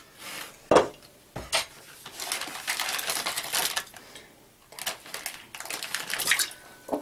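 Two sharp knocks about a second in, then crinkling of plastic wrap and a knife scraping as a block of butter is pushed off its wrapper into a saucepan.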